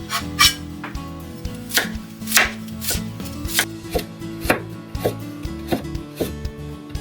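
Kitchen knife cutting fresh new ginger on a cutting board: sharp, irregular chopping strokes, about two a second.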